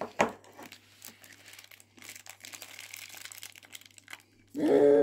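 Faint crinkling and clicking of plastic packaging being handled. Near the end a person's voice starts a loud, drawn-out pitched sound.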